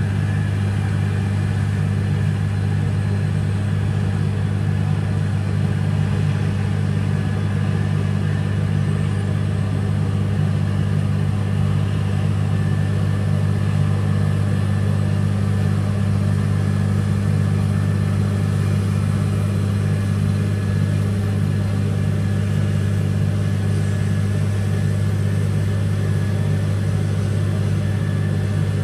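Caterpillar cold planer milling up the asphalt road, its diesel engine and cutting drum making a steady, loud, low drone with a rough noise above it that never lets up.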